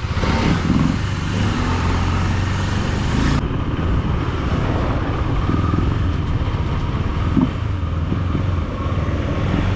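KTM Duke 250's single-cylinder engine running as the motorcycle is ridden, a steady low engine note.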